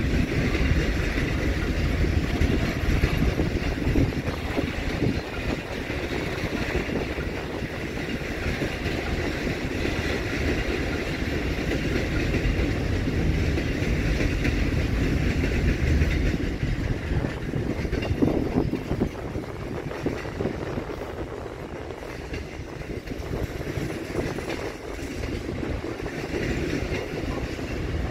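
Intermodal freight train's loaded container wagons rolling past, a steady rumble of steel wheels on the rails with a few sharp clicks along the way.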